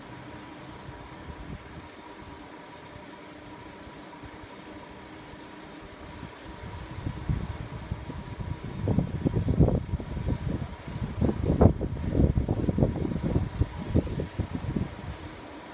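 A vehicle on the move: a steady hum, then from about seven seconds a loud, uneven low rumble for several seconds before it settles back to the hum.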